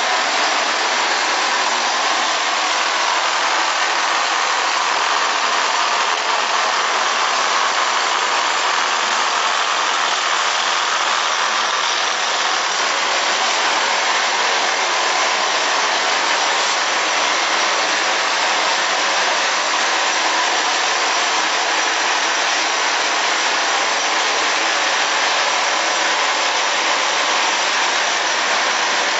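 Gear-driven automatic wall plastering machine running as it climbs its mast, its motor drive and trowel plate pressing cement mortar onto the wall: a steady, even mechanical noise.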